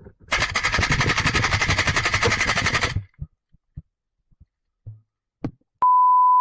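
AK-style airsoft rifle firing one long full-auto burst of about two and a half seconds, a fast even rattle of shots. A few faint clicks and knocks follow, then a steady, loud electronic beep of under a second near the end.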